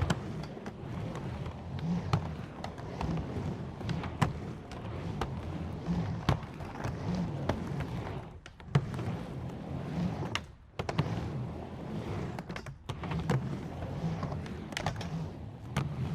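Skateboard rolling on hard pavement: a steady rumble from the wheels, broken by sharp clicks and knocks. The rumble drops out briefly three times in the second half, with a sharp knock about the first of these gaps.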